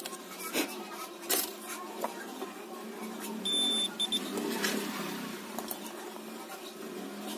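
Digital multimeter's continuity buzzer giving a short, high, steady beep about three and a half seconds in, then a brief second blip, as the probes touch points on the phone board. This is the meter's sign of a closed path between the probed points. Sharp clicks of metal tools on the board come before and after.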